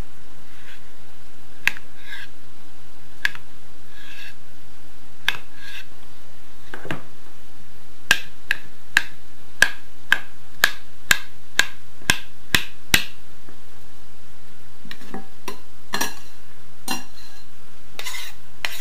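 Kitchen knife cutting beetroot on a thin plastic cutting mat, each stroke a sharp tap on the board: a few scattered taps, then a quick run of about two taps a second in the middle, and a few more near the end. A steady low hum runs underneath.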